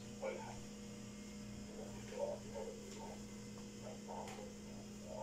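Steady low electrical hum, with faint muffled sounds now and then.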